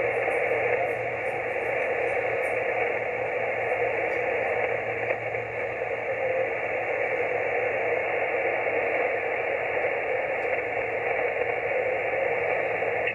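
Yaesu FT-891 HF transceiver's speaker giving a steady hiss of band noise on 20-metre upper sideband, with no station audible in the gap between transmissions.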